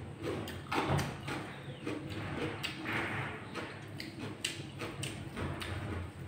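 Close-miked eating sounds: chewing with many short wet mouth clicks and smacks, with fingers mixing rice on a plate.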